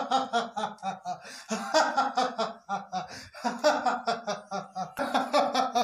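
A man laughing loudly in a theatrical, triumphant ha-ha-ha, in about four long bouts with short pauses between.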